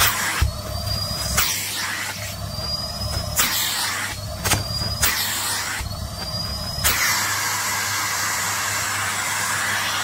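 Canister vacuum cleaner running with its hose nozzle worked over a shiny nylon puffer jacket: a steady motor hum under crinkling and rustling of the fabric, with a short rising whistle about every one and a half seconds as the nozzle seals against the material. From about seven seconds in the suction turns to a steady rushing hiss.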